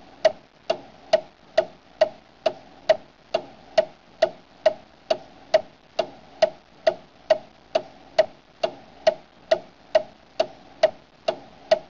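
Ticking sound effect: even, clock-like ticks a little over two a second, each with a short pitched ring.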